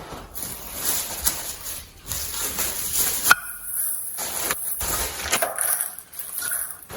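Handling noise from unpacking parts: a run of rustling, crinkling bursts with a sharp click about three seconds in, over a steady high hiss from a faulty microphone.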